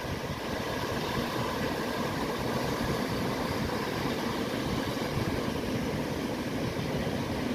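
Ocean surf breaking and washing along a beach, a steady rushing noise with a low rumble.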